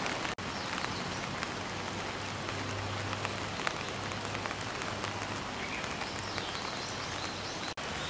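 Steady rain falling, an even hiss dotted with many small drop ticks. The sound cuts out for an instant twice, once near the start and once near the end.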